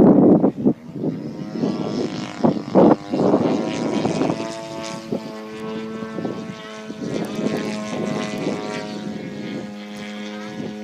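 Radio-controlled model airplane droning in flight at a steady pitch, fading slightly toward the end. A loud rushing noise covers the first few seconds before the drone comes clear.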